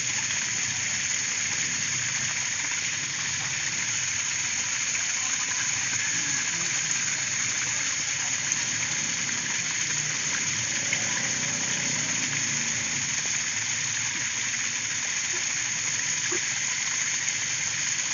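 A steady, even hiss like rushing water, unchanging throughout, with a couple of faint ticks.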